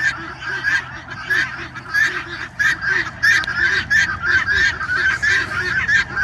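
A flock of poultry giving harsh, honking calls over and over, several calls a second and overlapping one another.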